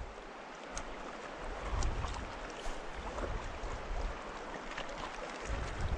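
Steady rush of a shallow river's current running over a rocky bed, with occasional low rumbles.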